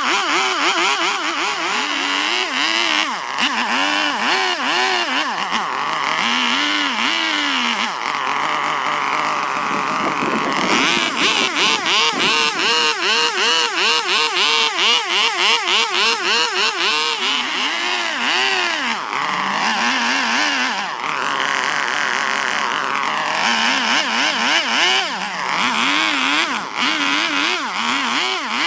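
Small handheld power tool motor whining, its pitch repeatedly dipping and recovering as it is pressed into and eased off the work, in quick regular passes for a stretch in the middle.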